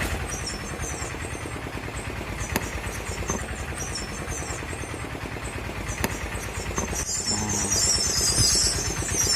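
A motor vehicle engine running steadily amid street noise: a low, fast-pulsing rumble with a few light clicks.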